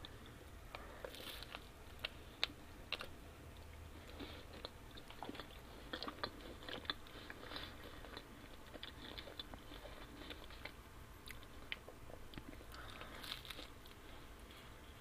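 Close-miked eating of pizza: biting and chewing with irregular small clicks and crackles from the mouth and food.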